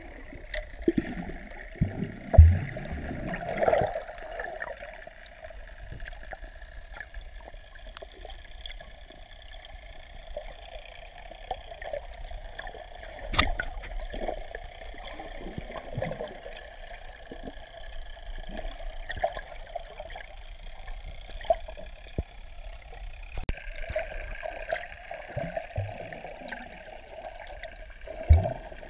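Muffled underwater sound from a waterproof camera held under the sea: a steady murky wash of moving water, broken by scattered clicks and a few low knocks, the loudest about two seconds in and another near the end.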